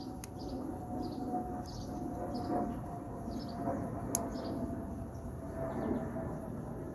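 Birds scolding with short, falling chirps about twice a second, over the steady low drone of an aeroplane passing overhead. Two sharp clicks come through, one just after the start and one about four seconds in.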